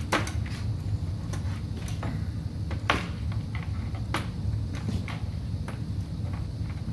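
Power-supply cables and their plastic connectors being handled and routed inside a steel computer case: scattered clicks and knocks, the sharpest about three seconds in and again about four seconds in, over a steady low hum.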